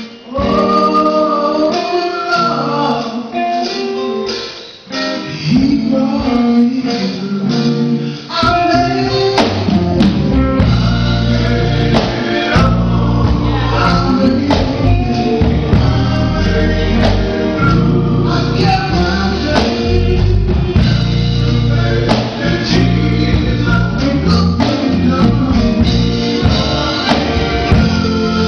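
Gospel song with a lead singer over guitar and other instruments. About eight seconds in, bass and drums come in with a steady beat.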